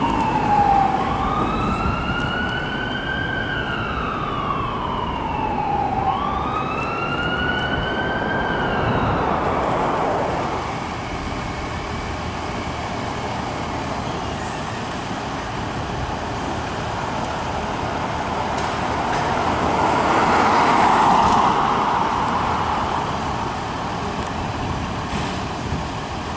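Fire truck siren wailing, sweeping slowly up and down twice before fading out about ten seconds in. After that, a steady rumble of engines and traffic, swelling around twenty seconds in.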